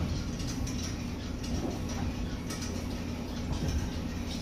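Cabin of a Seoul Subway Line 4 electric train slowing to a stop at a station: a steady low rumble and hum with faint scattered clicks, and no motor whine.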